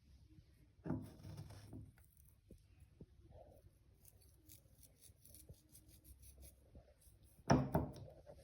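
Light handling sounds in a small room: scattered clicks and scrapes, with a louder scrape about a second in and a stronger knock-like burst near the end.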